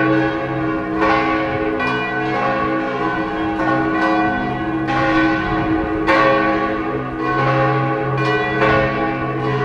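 Church bells of the Basilica of the Holy House in Loreto ringing the noon peal, strokes about once a second with each bell's tone hanging on and overlapping the next.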